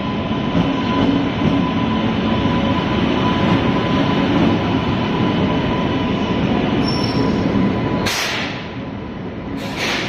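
Passenger train on Indian Railways, hauled by a locomotive, passing close by. The wheels make a steady rumble and clatter with a thin high steady tone over it, and two short, sharper bursts of noise come near the end.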